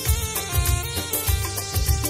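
Instrumental break of a Hindi film song in a jhankar remix: a melody line over a heavy, booming bass-drum beat.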